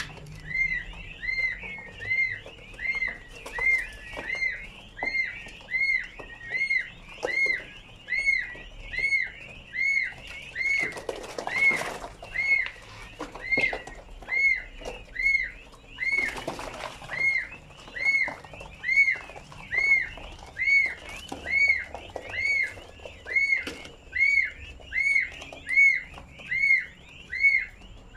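Peafowl chicks peeping: one chick repeats a loud, rise-and-fall peep about twice a second over softer peeps from the rest of the flock. There are two short rustling flurries around the middle.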